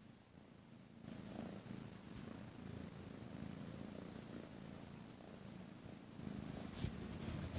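A kitten purring steadily while being petted, growing stronger about a second in. There is one brief knock near the end.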